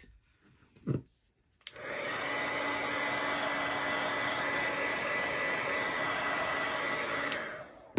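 Craft heat tool (embossing heat gun) switched on with a click, blowing with a steady rush and a faint whine for about five and a half seconds, then clicked off, drying and setting the sprayed ink on the paper.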